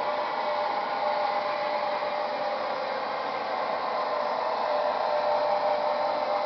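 Märklin model trains running on the track: a steady whir from the locomotive motors and rolling wheels, with faint steady tones from the motors.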